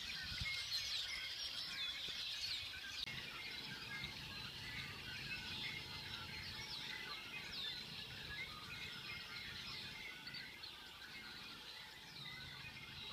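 A chorus of red-winged blackbirds calling, with many overlapping chirps and whistled sweeps, slowly fading away.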